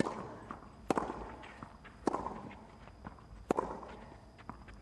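Tennis rally on a clay court: four crisp racket-on-ball strikes, trading back and forth about once every second or so, with fainter knocks between them.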